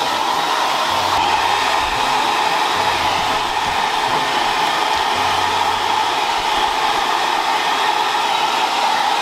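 Hair dryer running steadily while drying a wet dog after its bath: an even, unbroken rush of air with a constant hum.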